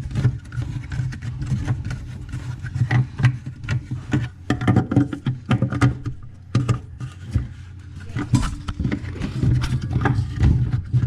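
Irregular clicks, knocks and scraping of a faucet nut tool working the plastic mounting nuts of a bathroom faucet under the sink, over a steady low rumble.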